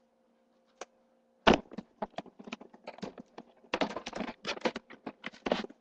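A run of irregular light clicks, taps and knocks, starting about a second and a half in.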